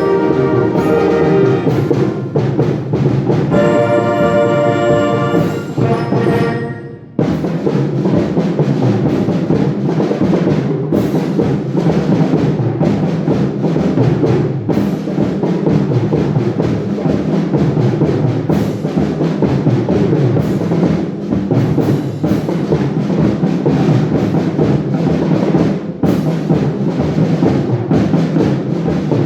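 Concert wind band playing: held brass and woodwind chords fade and break off about seven seconds in, then the full band comes back in with drums and timpani striking through a dense, loud texture.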